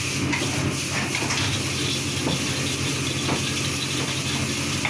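Noodles stir-frying in a wok over a high gas burner: a steady hiss of burner and sizzle, with several short metallic clanks and scrapes as the wok is tossed and the metal spatula works the noodles.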